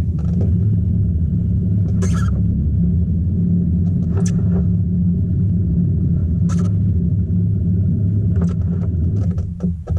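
Steady low hum of a small motor pushing the kayak along, with a few sharp clicks laid over it. The hum cuts back right at the end.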